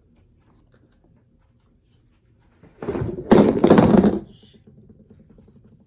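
A loud burst of handling noise, rustling and knocking, lasting about a second and a half near the middle.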